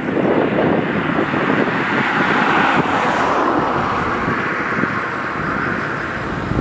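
A vehicle running, a continuous noise that swells about two to three seconds in and eases off toward the end.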